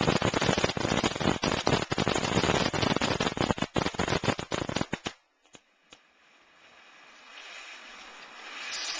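A firework crackling with a rapid, dense string of cracks that cuts off suddenly about five seconds in. After a couple of faint pops, a hiss builds up steadily toward the end.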